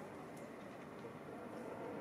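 Faint, steady outdoor background hiss, with a faint high tick about half a second in.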